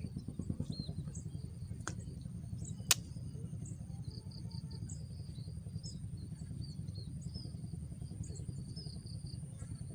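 Small birds chirping in short repeated calls over a steady low rumble, with a thin steady high whine behind them. A sharp click stands out about three seconds in, with a fainter one a second before it.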